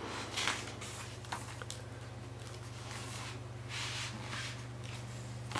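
Paper pages of a mediabook's booklet being turned by hand: soft rustling swishes about half a second in and again just before four seconds, with small paper clicks, over a steady low hum.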